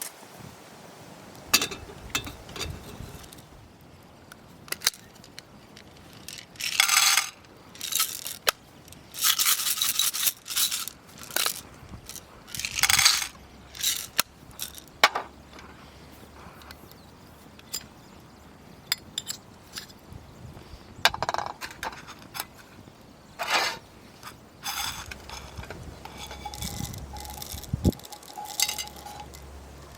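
Camp gear being handled: scattered clinks and scrapes of metal cookware and utensils, with several short rustling bursts in the middle.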